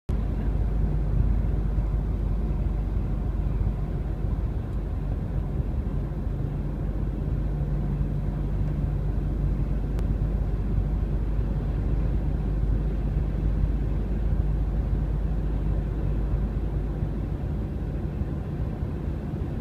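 GMC Yukon cruising at highway speed, heard from inside the cabin: a steady low rumble of road and drivetrain noise with a constant low hum.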